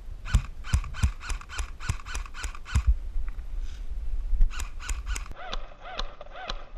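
A bird giving a rapid series of short pitched calls, about four a second, in two bouts, followed near the end by a string of rising-and-falling calls; a few low thumps come with the first bout.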